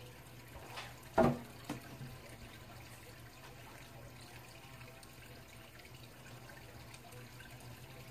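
A single sharp knock about a second in, with a fainter knock half a second later, over a low steady hum.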